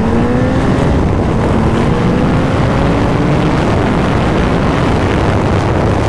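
Suzuki Hayabusa's inline-four engine pulling hard under acceleration, its pitch climbing through the first half, then buried under a heavy, steady rush of wind noise as the bike reaches highway speed.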